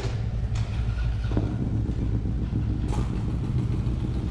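Harley-Davidson V-twin motorcycle engine idling with a steady low rumble, with several sharp clicks over it.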